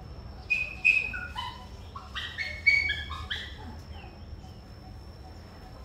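An animal's short high calls: a quick run of about a dozen clear notes hopping up and down in pitch over about three seconds, loudest about a second in and again near three seconds.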